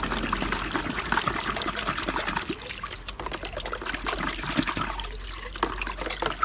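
Water trickling and splashing as utensils are washed by hand, with many small irregular knocks and clicks.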